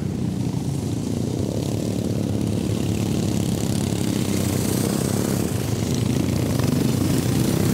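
Engines of several racing lawnmowers running hard as the pack drives past. The sound is a loud, steady drone that grows a little louder near the end.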